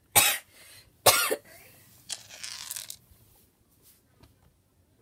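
Two short, harsh, cough-like calls from a pet, about a second apart, followed by a quieter rasping sound.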